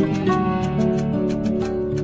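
Background music: an instrumental track of held notes changing in steps.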